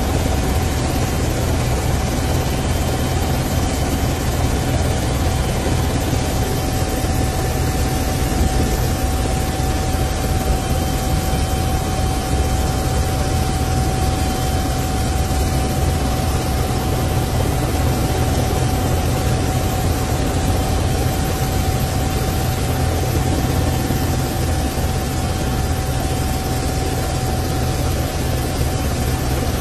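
Steady, loud drone of an aircraft in flight: a low hum with one constant whine above it and a broad rushing noise over everything, unchanging throughout.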